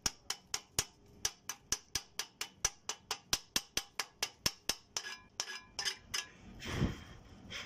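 Chipping hammer tapping slag off a fresh stick-weld bead on a steel bar: sharp metal-on-metal taps about four a second, slowing to a few scattered taps, then a brief scraping noise near the end.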